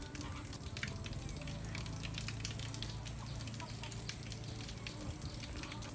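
Crackling, rustling handling noise with many small sharp clicks as a rubber strap and leather pouch are worked by hand, over a low steady hum.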